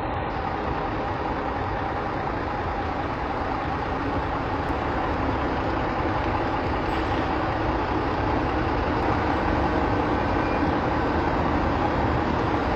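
A heavy vehicle's engine running steadily, growing slightly louder.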